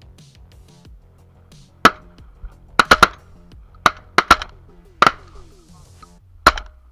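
A rapid string of shotgun shots, about nine sharp blasts in under five seconds, some only a fraction of a second apart, fired at a flock of ducks passing overhead. Background music runs underneath.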